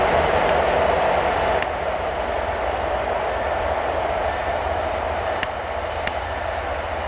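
A pair of coupled ET22 electric locomotives running without a train, rolling away along the track. The wheel-and-rail rumble fades gradually, and a few sharp clicks come through it.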